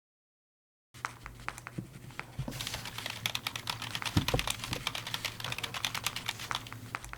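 Typing on a computer keyboard: rapid key clicks that start about a second in and soon come thick and fast.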